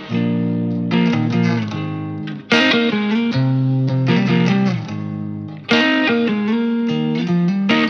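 Background music led by a guitar with an effects-treated electric tone, with strong chord attacks every few seconds.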